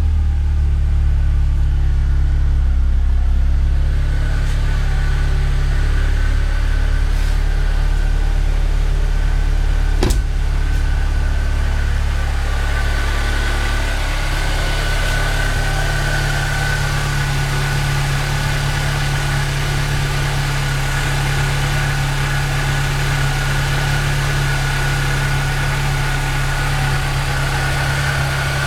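Supercharged 2008 Mazda MX-5 four-cylinder engine (Cosworth supercharger) idling steadily, with a faint steady whine above the engine note. There is a sharp click about ten seconds in, and the idle settles into a slightly different note about fourteen seconds in.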